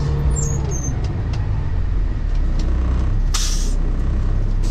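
Semi-truck diesel engine coming down from its raised idle of about 1,400–1,500 RPM about half a second in, the pitch dropping as the walking-floor trailer's unloading is finished. About three seconds in, a short sharp hiss of air from the air brakes.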